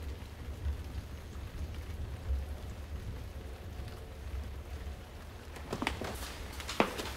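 Steady rain falling, with a low rumble underneath and a few sharp ticks near the end.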